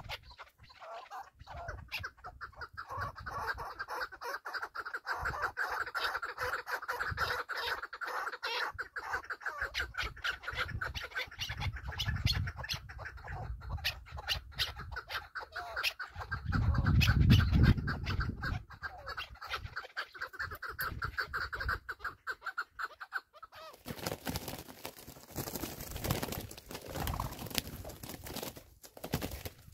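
Partridges calling in a fast, continuous run of clucking notes that lasts about twenty seconds and stops abruptly. A low rumble comes around the middle, and near the end a rushing noise takes over.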